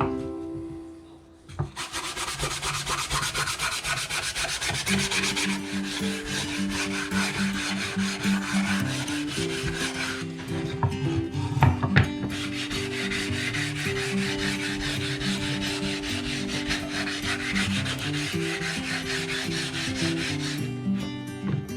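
Sandpaper rubbed back and forth on wood in quick, even strokes, starting about two seconds in and pausing briefly twice. A background music melody plays underneath.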